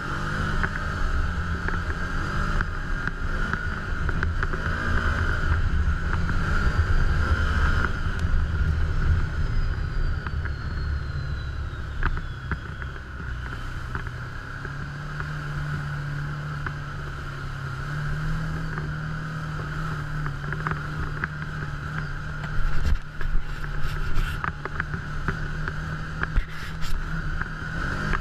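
Side-by-side UTV engine running steadily under way on a dirt trail, its pitch rising and falling with the throttle, over a constant high whine. A few sharp knocks and rattles come late on.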